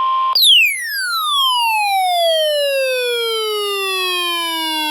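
Electronic siren-style alert tone falling steeply in pitch, fast at first and then more slowly, over about five seconds, and starting over at the top near the end. It cuts in about a third of a second in, where a steady single-pitch tone stops. It marks the start of a new emergency alert broadcast.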